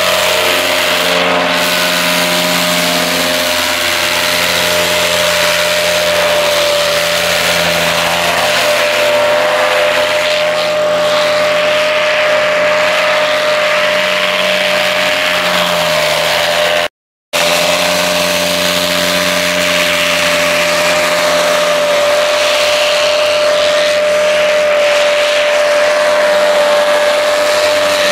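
Paramotor engines running with a steady drone, their pitch shifting a little now and then. The sound cuts out briefly about two thirds of the way through.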